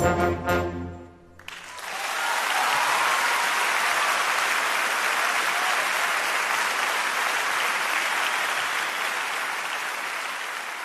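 A concert audience applauding on a live recording. An orchestral final chord with brass dies away first, and the clapping starts about a second and a half in, then slowly fades near the end.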